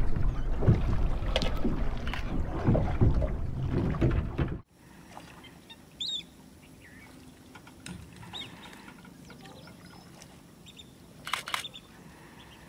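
Small boat's longtail engine running, mixed with wind on the microphone, cutting off abruptly about four and a half seconds in. Quiet open-air background follows, with one short bird chirp about six seconds in and a quick run of clicks near the end.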